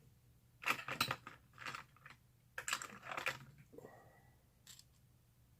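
Small metal parts of a brass padlock clicking and rattling in short bursts as the lock is taken apart by hand: a cluster about a second in, a shorter one near two seconds, another around three seconds, and a few faint clicks after.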